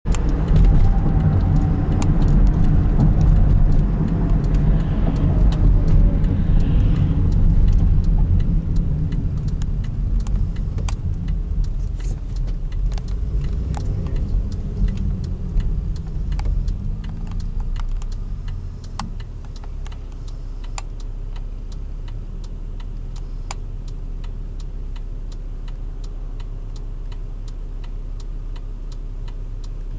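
Car interior with engine and road noise rumbling while driving, a slowly falling whine in the first few seconds, and the noise easing to a steadier, quieter hum about two-thirds through as the car slows and stops. Light ticks sound here and there throughout.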